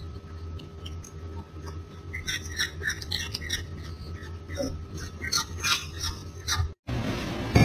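Spoon clicking and scraping in a glass dessert cup: a run of small quick clicks and scrapes over a steady low hum.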